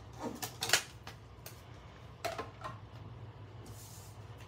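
Clear plastic cutting plates for a die-cutting machine clacking and tapping as they are handled and laid on the machine's platform: a handful of short knocks, the loudest under a second in.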